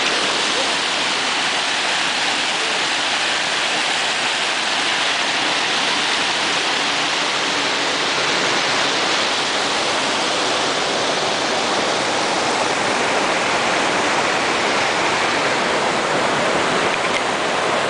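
River water cascading over rocks: a steady, even rush of white water.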